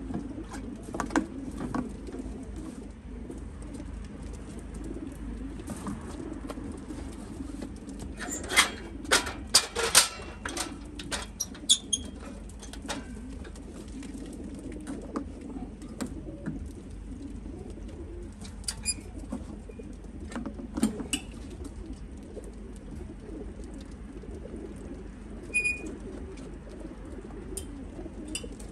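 Many pigeons cooing steadily inside stacked metal transport crates. A cluster of sharp knocks and clicks comes about a third of the way in, with a few more later.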